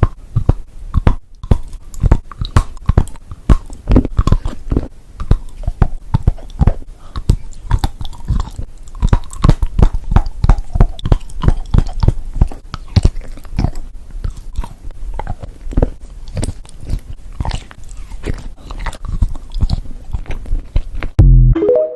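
Mouth sounds of someone chewing and crunching Dubai chocolate: dense, fast, irregular crisp crackles as the toasted kataifi pastry filling breaks between the teeth. A brief louder thump comes just before the end.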